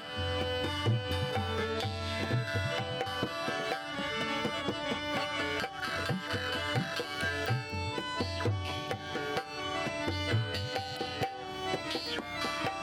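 Rajasthani folk music: a hand drum plays a rhythm of deep bass strokes under steady, sustained melodic tones.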